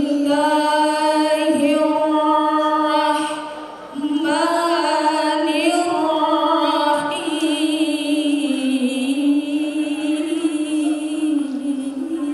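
A woman's solo voice chanting through a microphone and PA in long, drawn-out, ornamented notes with vibrato. It breaks off briefly about three and a half seconds in, then goes on.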